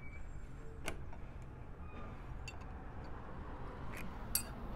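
A few short, sharp metallic clicks and taps, the loudest near the end, over a low steady hum: a 60-degree V-bit being fitted by hand into the CNC router's collet.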